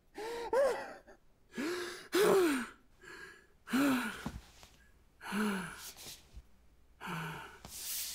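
A young man sobbing: a series of breathy, gasping sobs, roughly one a second, each with a pitch that rises and falls.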